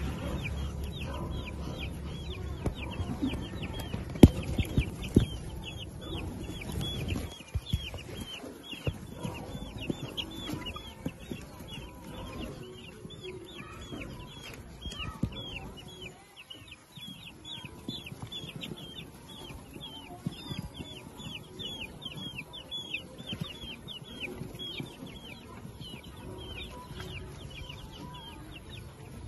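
Week-old chicks peeping continuously: many short, high calls, each falling in pitch, several a second. A low rumble runs through the first seven seconds, and a sharp click comes about four seconds in.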